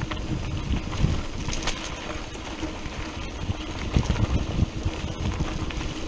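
Wind buffeting an action camera's microphone on a mountain bike in motion, mixed with the rumble and scattered clicks of the tyres and bike on a dry dirt trail.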